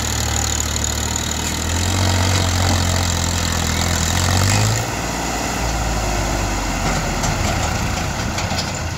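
Massey Ferguson 7250 tractor's three-cylinder diesel engine running hard, straining under the load of a full soil trolley on a loose uphill slope. About five seconds in, the steady engine note drops to a lower, rougher sound.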